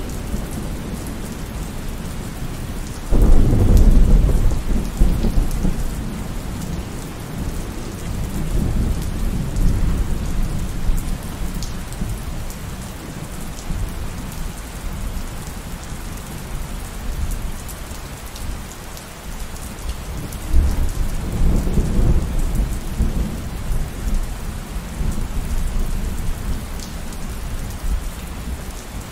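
Steady rain falling, with two low peals of thunder. One breaks suddenly about three seconds in and rumbles on for several seconds; a second rolls in about twenty seconds in.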